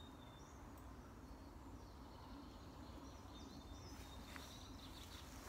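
Near silence: faint woodland ambience with a few short, distant bird chirps and a couple of faint clicks near the end.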